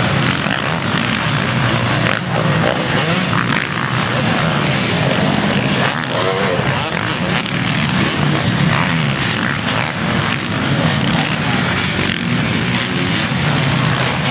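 Several motocross motorcycles racing on a dirt track, engines revving up and down as they pass, continuous and loud.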